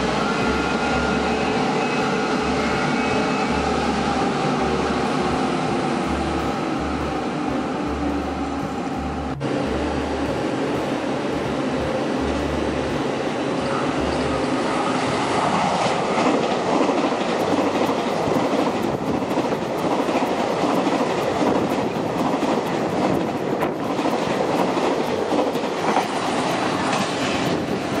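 Electric trains at a station platform. An electric push-pull express is at the platform with a whine slowly falling in pitch; then an EMU3000 electric multiple unit approaches on the through track, its running rumble growing louder about halfway through.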